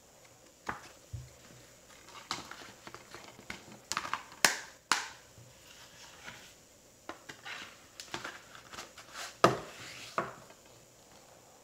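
Plastic Blu-ray cases, a paper booklet and a cardboard slipcase being handled: a run of irregular taps, clicks and short rustles, with the two sharpest knocks about four and a half seconds in and about nine seconds in.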